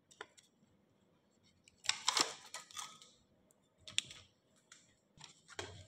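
Thin aluminum sheet cut from a soda can crinkling and clicking as it is bent by hand, in a few short bursts: about two seconds in, again around four seconds, and near the end.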